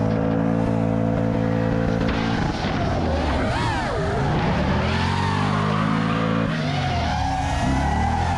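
LS V8 engine of a swapped BMW 335i running hard at steady high revs. The engine note breaks and wavers for about a second and a half, then climbs again with a step partway up, like a gear change under acceleration.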